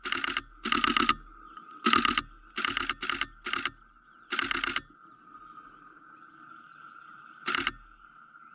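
Camera shutter firing in rapid bursts of high-speed continuous shooting: several short bursts of fast clicks over the first five seconds, then one brief burst near the end, over a steady high-pitched hum.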